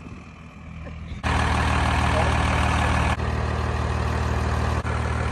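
Straight-piped 12-valve Cummins inline-six diesel in a school bus idling steadily. It is fainter for the first second, then jumps abruptly much louder and stays level, with a couple of brief dropouts.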